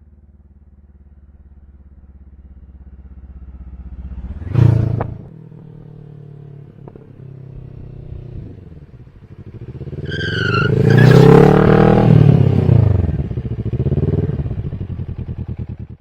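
Kawasaki ER-6n 650 cc parallel-twin engine breathing through a full LeoVince exhaust with the baffle removed. It idles, is blipped sharply once about five seconds in, then surges loudly from about ten to thirteen seconds as the revs climb and fall, with a brief high squeal at the start of the surge and a smaller swell near the end.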